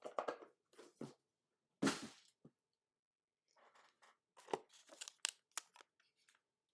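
Trading card packaging being torn open and handled: a few short tearing crinkles, a longer one about two seconds in, then a run of small clicks and rustles.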